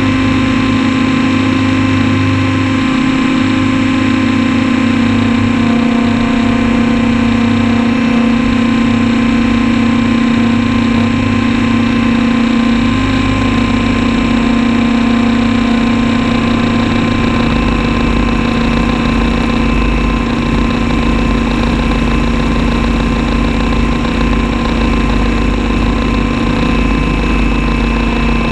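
Radio-controlled model aircraft's engine heard close up from a camera mounted on the model, running steadily through the takeoff and flight.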